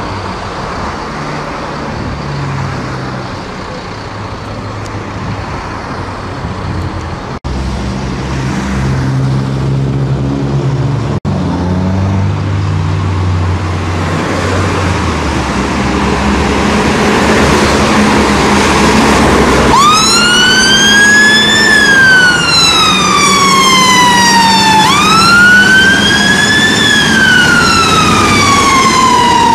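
A Mercedes-Benz fire engine's diesel engine running and pulling away, growing louder, then about two-thirds of the way in its siren starts. The siren is a wail that climbs quickly and falls slowly, twice over.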